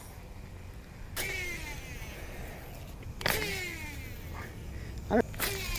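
Fishing reel spools whirring as lures are cast, twice, each whine falling in pitch as the spool slows. A brief sharp sound comes near the end, over a steady low hum.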